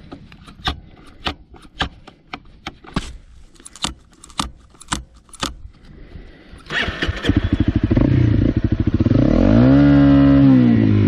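A series of sharp clicks, about two a second, then a dual-sport motorcycle engine starts about two-thirds of the way in. It settles into a steady idle and is revved up and back down once near the end.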